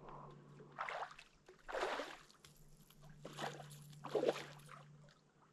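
A hooked flathead catfish splashing at the surface as it is brought in: four splashes, roughly a second apart, over a steady low hum.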